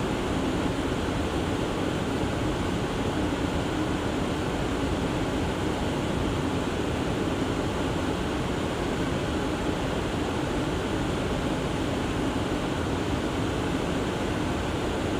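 Steady hum and hiss inside a standing R179 subway car, its ventilation and onboard equipment running with an even low drone.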